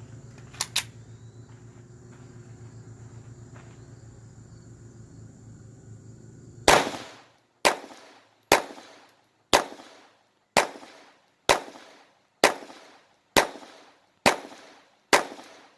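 Glock 44 .22 LR pistol firing a string of ten shots at a slow, even pace of about one a second, starting about halfway through. Before the string there is only a steady low background hum and a couple of light clicks.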